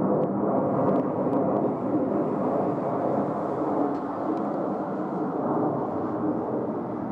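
Boeing 747 freighter's four jet engines, a loud steady rumble that gradually eases off.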